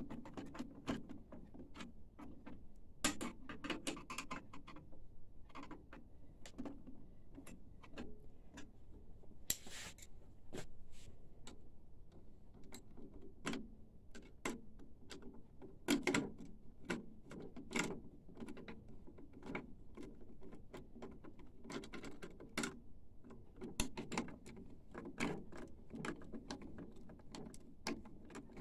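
Irregular small clicks, taps and knocks of hand work with tools on a printer's metal and plastic parts, with a short scrape about ten seconds in.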